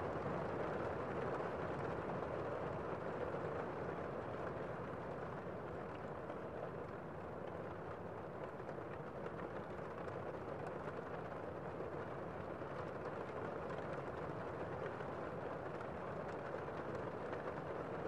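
Heavy rain heard from inside a building, muffled by the walls and roof: a steady, even hiss with the high end dulled.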